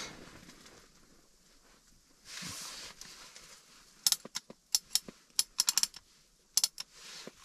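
A short rustle, then a run of sharp, light clicks and taps at uneven spacing over about three seconds, from an angler handling a small ice-fishing rod and paying out line.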